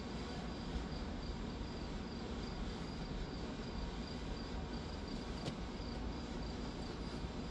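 Crickets chirping in a steady, evenly spaced rhythm over a constant background hiss.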